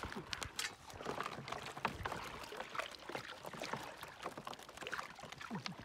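Shallow water splashing and sloshing as a person wades and works their hands through it, with a faint, irregular patter of small splashes and clicks.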